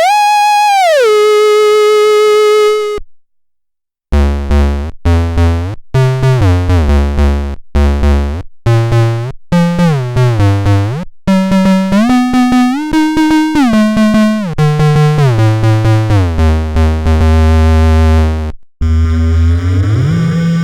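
COSMOTON 2 mini synthesizer: a held tone that glides up, drops and holds, then stops about three seconds in. After a second of silence comes a run of short repeated notes over a deep bass that steps and glides between pitches, ending in a long held tone that slides upward near the end.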